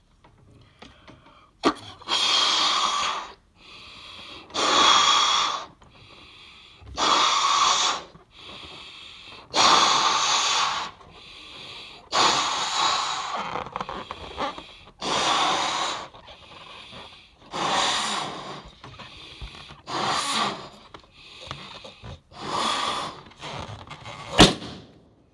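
A person blowing up a balloon by mouth: nine strong breaths blown into it, about one every two and a half seconds, with quieter inhales between them. There is a single sharp click near the end.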